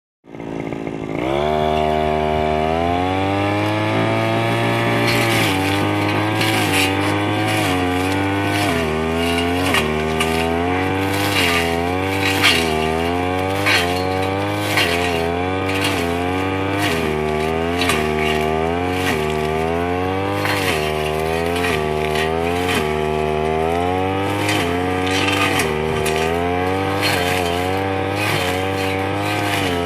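Two-stroke brush cutter engine starting up about a second in, then revving up and down about once a second as it is swung through wild grass. The line cuts the stems with a steady crackle.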